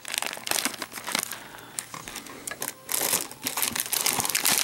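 Snack packets and their wrapping crinkling and rustling as they are handled and sorted, in irregular crackles that grow busier in the second half.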